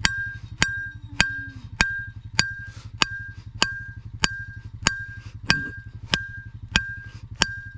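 Electric fence energizer pulsing: a sharp click with a short ringing tone about every 0.6 s, showing the fence is live. A steady low hum runs underneath.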